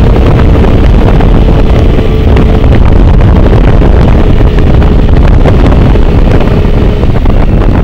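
Heavy wind buffeting the microphone at speed, over the steady drone of a TaoTao VIP Future Champion 49cc four-stroke scooter engine held at high revs near top speed.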